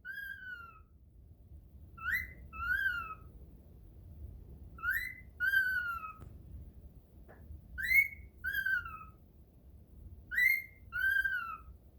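A two-note whistle, a quick rising note followed by a longer falling one, repeated four times at even spacing of about three seconds, each phrase nearly identical.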